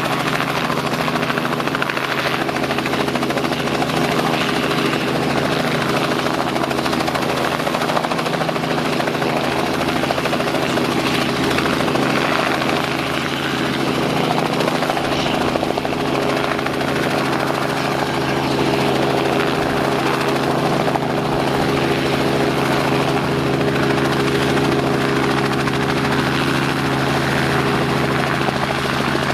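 Robinson R44 helicopter running on the ground with its rotors turning, then lifting off into a hover near the end. It is a steady mechanical drone of the six-cylinder Lycoming piston engine and rotors, a little louder in the second half.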